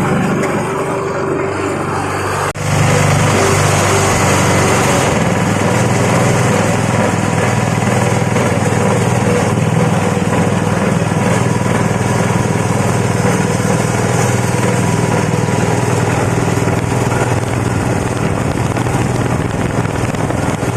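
Tobacco stem chopping machine running steadily with a motor drone. It drops out briefly about two and a half seconds in, then runs on louder and noisier.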